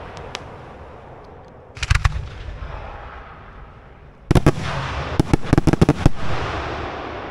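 Fireworks going off: a short cluster of bangs about two seconds in, then a louder volley about four seconds in running into a rapid series of cracks. Each group dies away in a long, rolling echo.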